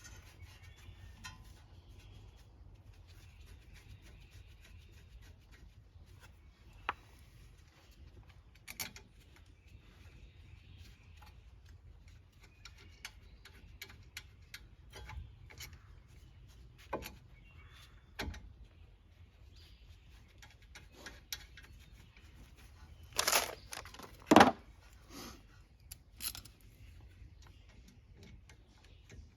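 Scattered metallic clicks and clinks of hand tools and bolts as the brake caliper's two 14 mm bolts are fitted, with a louder pair of knocks near the end.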